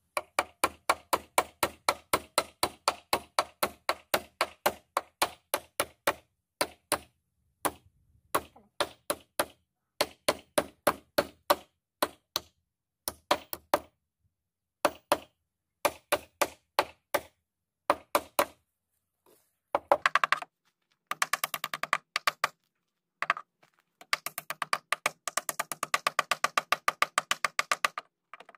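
A hammer driving large nails into a wooden stair support block: runs of sharp strikes at about three a second with short pauses between them, turning into quicker, denser blows near the end.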